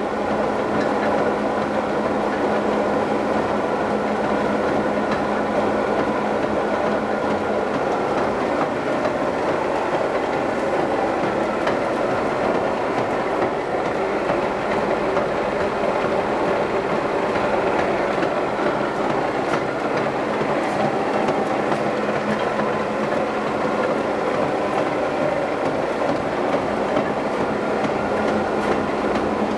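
Heavy machinery running steadily: a constant low hum under a dense, continuous mechanical rattle.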